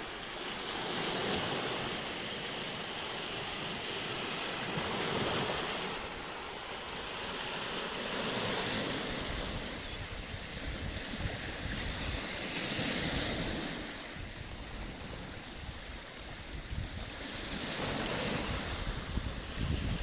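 Small sea waves breaking on a pebble beach and washing back over the stones, the surf swelling and fading every few seconds, with wind buffeting the microphone.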